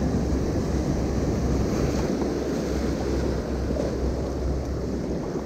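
Ocean surf washing steadily against a rocky shore, with wind rumbling on the microphone.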